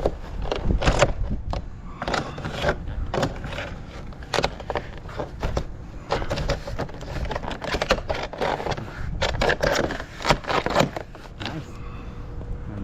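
Irregular scraping, clicking and knocking of vinyl siding panels being handled and worked by hand.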